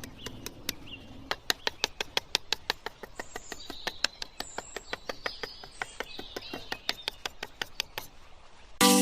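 A steady run of sharp, evenly spaced clicks, about five a second, with faint high bird chirps in the background.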